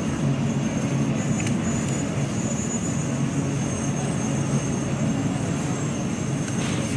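Steady low rumble of vehicle engines, as of street traffic running without a break.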